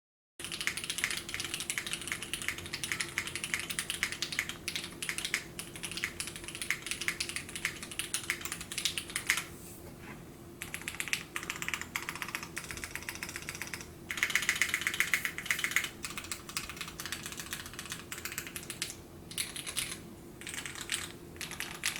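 Typing on a custom 65% mechanical keyboard with lubed linear switches (vintage Cherry housings, UHMWPE stems) and PBT keycaps: a dense run of rapid keystroke clacks. It starts abruptly after a moment of dead silence, eases briefly, and has a louder, faster flurry about two-thirds of the way through.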